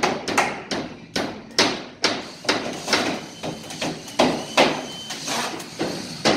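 Hammer blows nailing drywall, a steady run of sharp strikes about two to three a second, each with a short ring.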